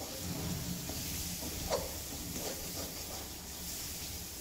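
Spice masala of ground onion, chilli and garlic paste with powdered spices frying in mustard oil in a steel kadai: a low steady sizzle, with a spatula stirring the paste and scraping the pan a few times.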